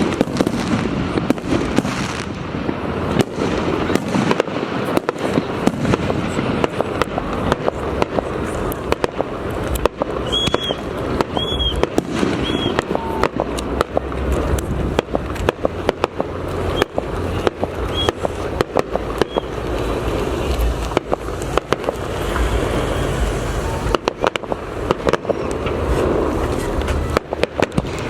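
Aerial fireworks display: a dense, irregular run of shell bursts and bangs in quick succession, over continuous crackling and a low rumble.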